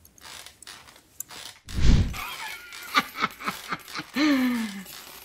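Cartoon sound effects: light clicking of knitting needles, then a sudden deep thump about two seconds in, followed by short wordless vocal sounds and a long low voice sound gliding down near the end.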